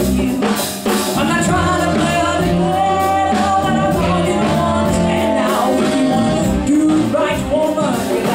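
Live band playing a song, a woman singing lead over electric bass and drums.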